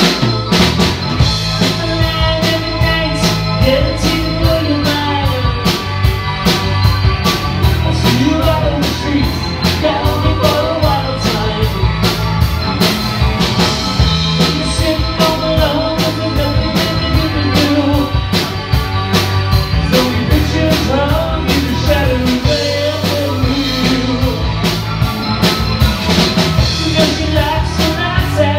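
Live rock band playing: a singer over electric guitars and a drum kit keeping a steady beat.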